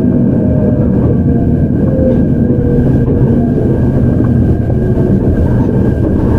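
Hokuriku Railroad 03 series electric train running, heard from inside the car: a steady rumble of wheels on rail. A thin steady whine from the Mitsubishi IGBT-VVVF traction equipment sits above the rumble.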